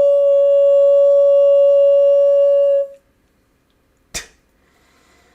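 A man's voice holding one long, steady, high-pitched tone as he channels, stopping abruptly about three seconds in; silence follows, broken by a single short click about a second later.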